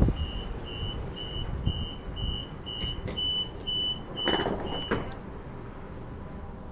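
Door warning beeps on a Transperth Bombardier B-series electric train, a high pitched beep about twice a second, stopping about five seconds in as the doors slide shut with a short rush and thud. A low steady rumble follows.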